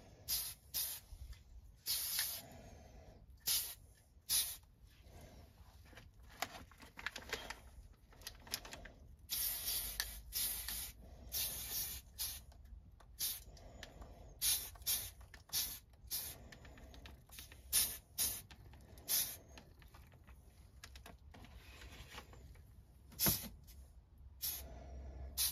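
Aerosol spray paint can giving many short hissing bursts, a few of them held for about a second, as small parts are sprayed a light coat at a time.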